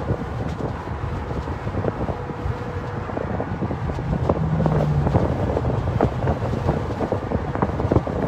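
Wind buffeting the phone's microphone in an open-top convertible on the move, over a low rumble of road and engine noise.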